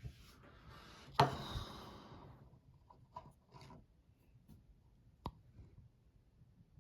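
Handling noises: a rustling hiss with one sharp knock about a second in, then a few light clicks and one sharp click about five seconds in.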